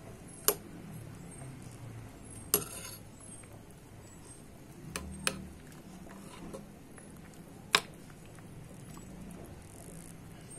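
Sharp clinks from a glass cooking pot, five of them a second or two apart, over a low steady background hum.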